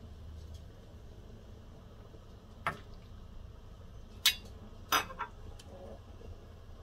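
A metal ladle clinking against a glass jar and the rim of a pot as mushrooms are spooned into the jar. There are four short, sharp clinks, and the loudest comes about four seconds in.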